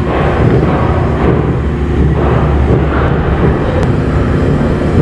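Loud, steady low mechanical rumble.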